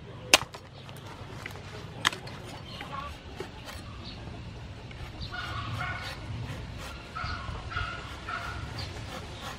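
Cleaver chopping into a whole palm fruit on a round wooden chopping board: a sharp knock just after the start and another about two seconds in, with lighter cuts between. From about five seconds in, an animal gives short, repeated pitched cries, about two a second.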